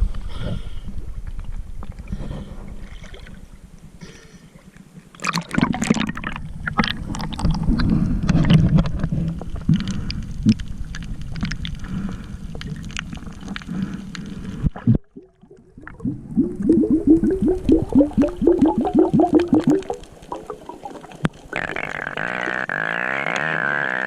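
Water gurgling and bubbling around a camera with its microphone submerged, in several edited segments. One stretch is crackly and another holds a quick run of short rising bubbly pulses. A steady droning tone begins near the end.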